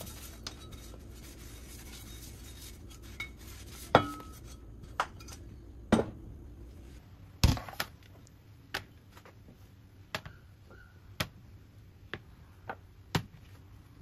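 Kitchenware knocking and clinking against a counter: about ten sharp separate knocks, the loudest near the middle, over a low steady hum that stops about halfway through.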